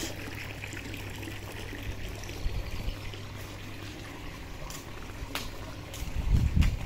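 Water trickling steadily, with a steady low hum underneath and a brief low rumble near the end.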